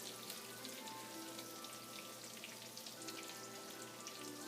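Flour-dredged chicken pieces frying in olive oil and butter in a pan, a steady faint sizzle with many tiny pops, over quiet background music.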